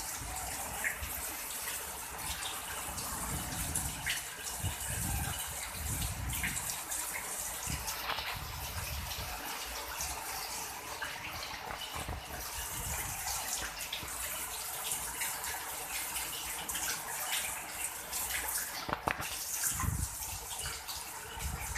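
Steady rain falling on puddled ground and a wet terrace: an even hiss with scattered drips and splashes.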